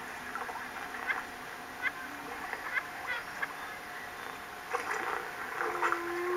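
Faint outdoor background with a few short, rising chirps scattered through it, and a brief held call near the end.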